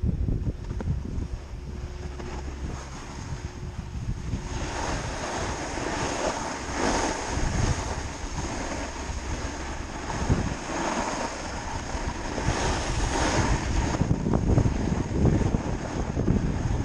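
Wind rushing over the microphone and a snowboard sliding and scraping over snow on a downhill run, the noise swelling and fading several times.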